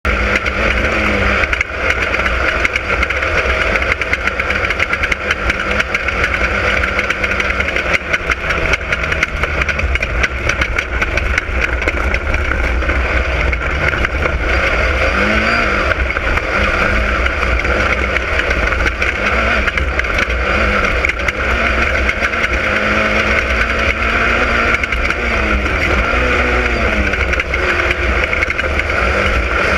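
Class 10 off-road race car driving, its engine running loud and steady over a constant low rumble. The engine pitch briefly dips and rises several times in the second half.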